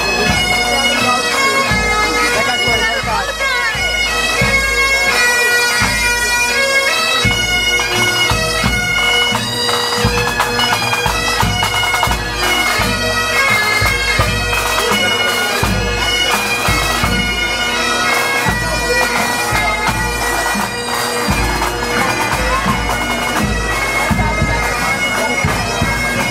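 A pipe band marching and playing: bagpipes carry the tune over their steady drone, with bass and snare drums keeping the beat.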